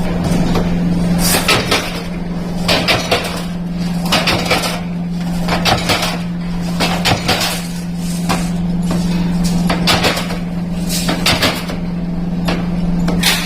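Metal cookware being worked in a workshop: irregular sharp clanks and knocks, several a second at times, over a steady low machine hum.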